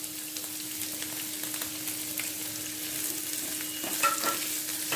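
Chopped vegetables sizzling in hot oil in a non-stick frying pan on high flame while a spatula stirs and scrapes them, with a few sharper spatula scrapes about four seconds in.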